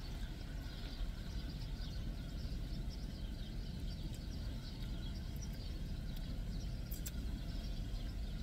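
Birds chirping outside over a steady low rumble, with a couple of faint clicks about seven seconds in.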